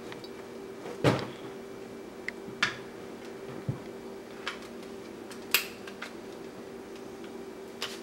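Handling noises from a coil of Ethernet cable and a plastic network cable tester being picked up and moved on a table: about seven scattered short clicks and knocks, the loudest about a second in and about five and a half seconds in, over a faint steady hum.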